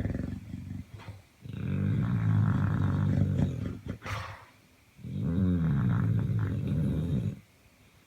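A pet snoring: two long snores of about two seconds each, a few seconds apart, with a shorter, weaker one near the start.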